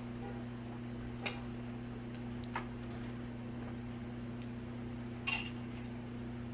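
A few light, sharp clicks of utensils against plates while fried fish is served, over a steady low electrical hum.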